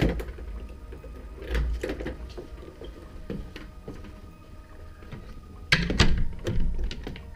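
Hotel room door handled by its brass knob and pulled to: scattered clicks and knocks of the knob and latch, loudest in a cluster about six seconds in.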